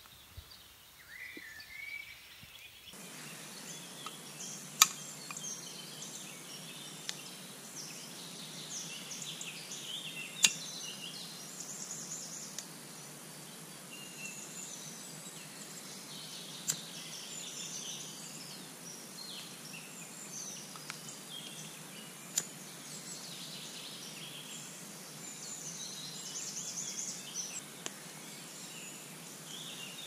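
Woodland birds singing in the dawn chorus: many short chirps and trills from several birds overlapping over a faint steady hiss. Four sharp clicks about six seconds apart stand out as the loudest sounds.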